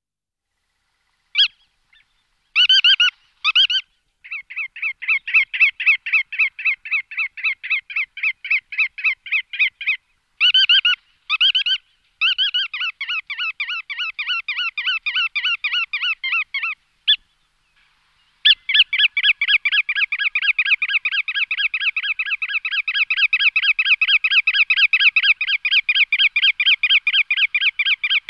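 Bar-tailed godwit calling: harsh, nasal notes given singly and in pairs, then in long rapid series of about three to four notes a second, with short silent breaks. The last series, starting a little past halfway, is the longest and fastest.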